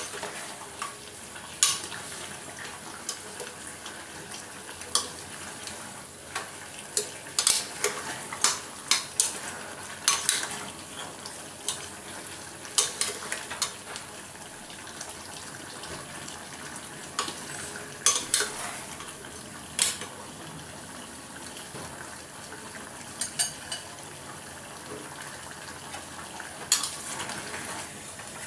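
Chicken and masala sizzling in a kadai over high heat while a spatula stirs and scrapes, knocking against the pan in repeated sharp clinks. This is the kosha stage, the released liquid being cooked off as the chicken dry-fries.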